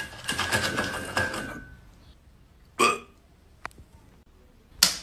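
Rustling and scuffing of a plush toy being handled and set down on a wooden floor, followed by two short, sharp sounds about two seconds apart and a faint click between them.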